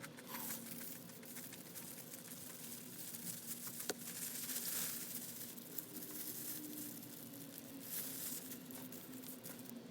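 Irregular crinkling and rustling of handled wrapping or packaging, with one sharp click about four seconds in.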